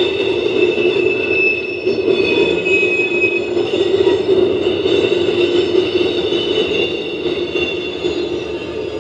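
Norfolk Southern coal train's hopper cars rolling past: a steady rumble of wheels on rail, with a high, steady wheel squeal over it.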